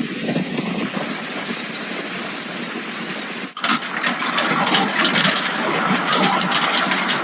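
Heavy hail coming down as a dense, steady din. About three and a half seconds in, the sound breaks off and picks up again with many sharp cracks of hailstones striking hard surfaces over the din.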